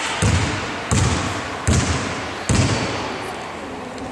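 Basketball bouncing on a wooden gym floor: four dribbles about three-quarters of a second apart, each echoing in the hall, then the bouncing stops.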